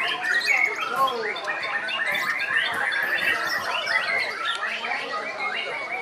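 Many caged songbirds of mixed kinds singing at once, a dense overlapping chorus of chirps, trills and rising and falling whistles.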